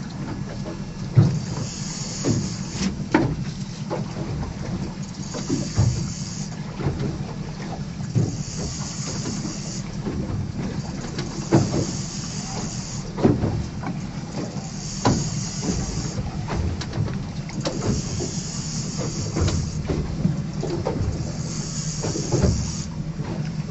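Boat engine running with a steady low drone. A hiss rises and falls about every three seconds, and there are scattered knocks.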